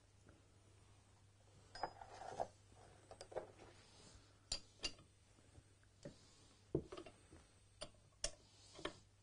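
Scattered metallic clinks and taps of a steel spanner on the pulley nut and of tools handled on a wooden workbench as the nut is tightened, a dozen or so separate clinks starting about two seconds in.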